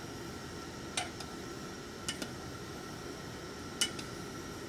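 Chopsticks clicking against the side of a stainless steel pot while stirring egg drop soup: a few light taps, in small pairs about a second apart, over a steady low background hum.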